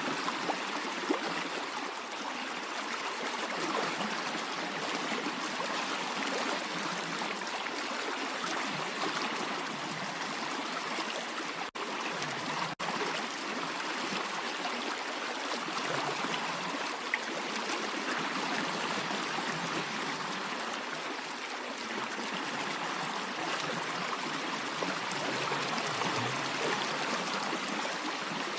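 A stream flowing steadily, a continuous rushing and trickling of water, with two momentary cut-outs about twelve and thirteen seconds in.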